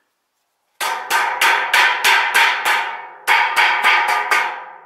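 Steel roof ridge cap struck repeatedly with a red-handled screwdriver: sharp, ringing metal taps at about three a second, seven in a row, a short pause, then five more.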